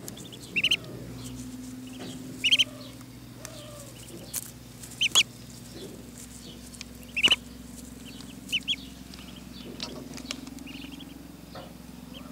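Ducklings peeping, short high peeps in clusters of two or three every second or two, with a few sharp clicks and a faint steady low hum underneath.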